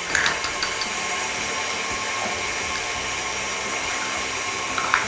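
KitchenAid Artisan stand mixer running steadily, its motor whining as it beats a butter and sugar mixture. A few short taps of eggshells being cracked come near the start and near the end.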